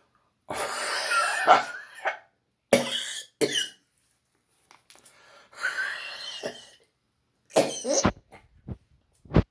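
A man coughing deliberately in about five harsh bouts with short pauses between, the first and longest lasting over a second and the rest short.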